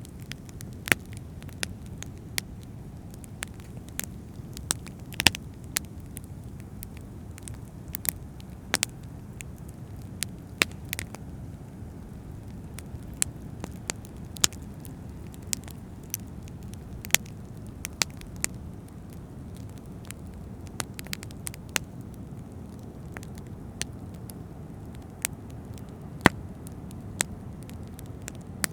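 Fire crackling with irregular sharp pops and snaps, a few a second, over a steady low rumble of ocean waves.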